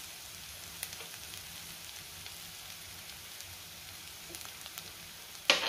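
Faint, steady sizzle and light crackle of a dry peanut, coconut and green-chilli mixture roasting in a kadhai over a low gas flame, with a few tiny ticks and one short sharp noise near the end.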